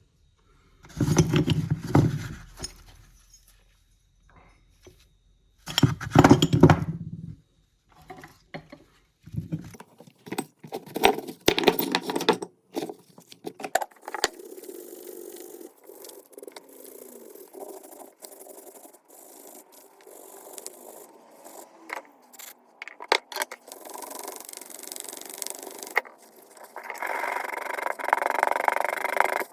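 Metal parts of an old bullet reloading tool being worked by hand: scraping, clinking and rattling, with two louder bursts near the start and a steadier rasp later on.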